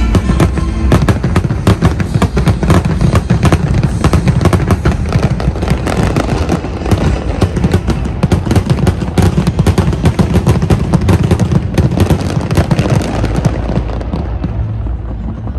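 Fireworks going off in a dense, rapid barrage of bangs and crackles, many per second. The bursts thin out and grow duller in the last couple of seconds.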